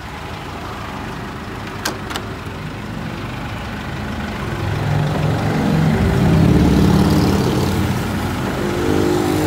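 Chevrolet S10's 2.8 MWM four-cylinder turbo-diesel engine idling steadily, growing louder about five to seven seconds in. Two short clicks sound about two seconds in.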